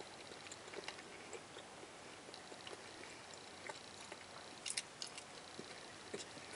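A person chewing a mouthful of dry Popeyes biscuit with the lips closed, faint, with scattered small wet mouth clicks and a sharper cluster of clicks about two-thirds of the way through.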